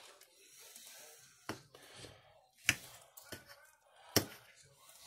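Two metal forks pulling apart cooked chicken breast on a plate: soft scraping with a handful of sharp clicks of the tines against the plate, four of them louder than the rest.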